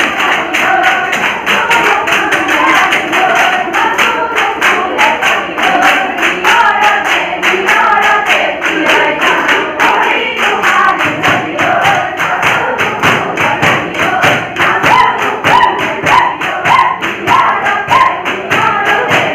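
Women's group singing a jeng bihu song over a fast, steady beat of sharp percussive strikes, about three to four a second. The beat gets heavier about halfway through.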